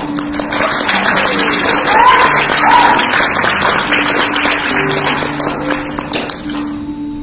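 Recorded ritual music: sustained low held notes under a dense rattling hiss that thins out near the end, with two short high calls about two seconds in.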